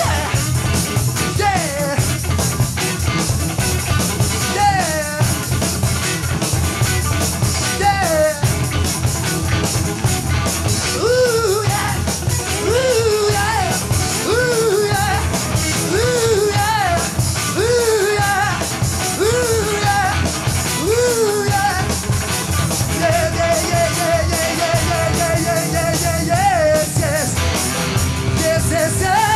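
Live hard-rock band playing loud, with electric guitar, bass and drums. A singing voice repeats short gliding wails through the middle and holds a wavering note near the end.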